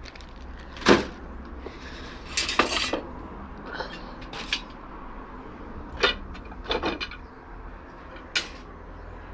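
Pieces of scrap metal clanking and clattering as they are handled and dropped, in a string of separate sharp knocks a second or two apart, with a short rattling run of them near the third second.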